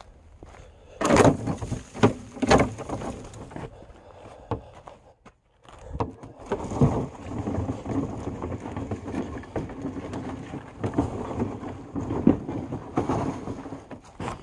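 Plastic wheeled trash cart rolled over dirt and pine straw. A few loud knocks and bumps come in the first seconds, then a steady rough rumble of wheels on the ground with scattered crackles.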